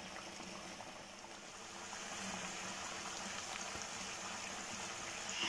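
Chicken korma gravy of chicken, yogurt and almond paste bubbling hard in a wok: a steady hiss of many small popping bubbles.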